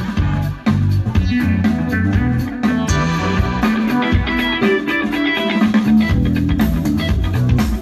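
Live band playing an instrumental soulful house passage, with guitar over a bass line and a steady beat.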